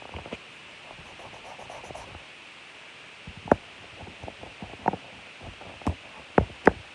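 Handling noise: a scatter of short clicks and knocks over a faint steady hiss, sparse at first and more frequent in the second half.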